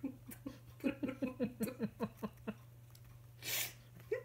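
A person giggling in a quick run of short notes, each falling in pitch, about five a second, followed by a short breathy exhale.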